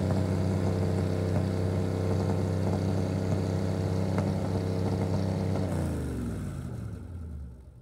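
Marine V8 engine running steadily through water-cooled exhaust hoses, its EST ignition just re-timed to 8 degrees base and 30 degrees total. About six seconds in it is shut off and winds down, its pitch falling as it fades out.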